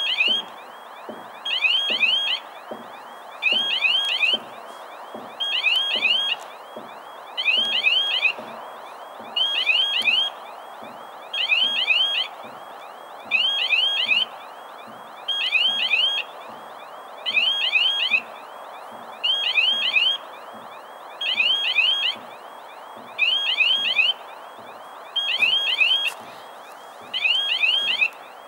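Level crossing's electronic warning bell sounding: a short burst of high warbling chimes about every two seconds, repeating steadily. It is the crossing's warning that a train is approaching and the road is closed.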